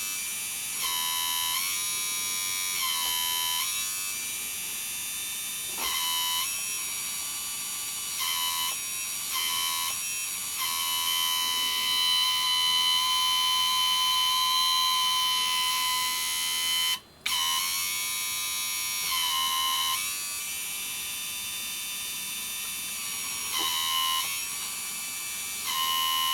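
Small electric hydraulic pump of a model tractor whining steadily, its tone and level shifting every second or two as the valves move the front loader's stick cylinders and the load changes. It stops for a moment partway through.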